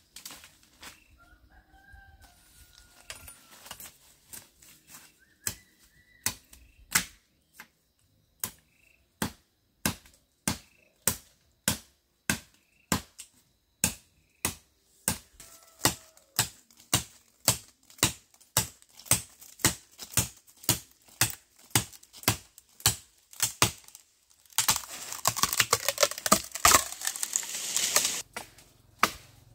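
Steady chopping strikes, about two a second, with faint chicken calls at the start. A burst of rushing noise comes in for about three seconds near the end.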